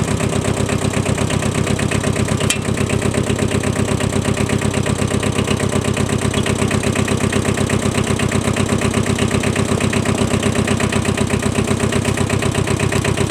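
Small Kubota 5001 diesel tractor engine running steadily with an even, rapid pulse, and a brief click about two and a half seconds in.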